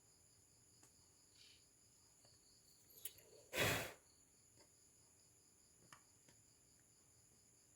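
Crickets chirping faintly and steadily, with a few light clicks. About three and a half seconds in comes one brief rushing noise, the loudest sound, lasting about a third of a second.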